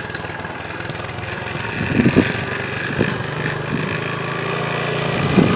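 A motor vehicle engine running steadily, its low hum growing stronger in the second half, with a few sharp thumps about two and three seconds in.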